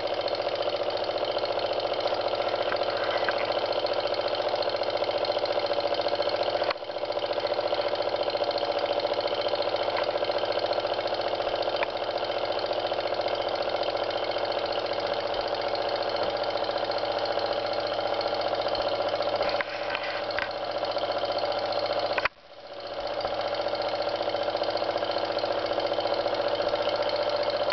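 A refrigeration compressor converted to pump air, running with a steady fridge-like hum, together with a small toy steam engine running on the compressed air. The sound dips briefly about seven seconds in, and about 22 seconds in it drops out sharply and swells back over a second or so.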